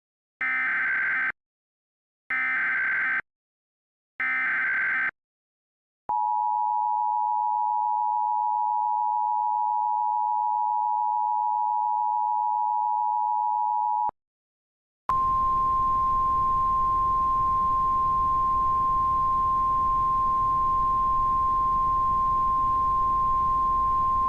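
Emergency Alert System tones: three bursts of about a second each of SAME header data squawk, then the two-tone attention signal held steady for about eight seconds. After a short gap, a single steady 1050 Hz weather-radio warning alarm tone sounds over a hiss of static.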